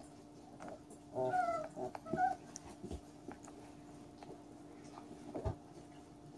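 Catahoula Leopard puppies whining and yipping as they play, in two short cries about a second and two seconds in, followed by a few soft thumps.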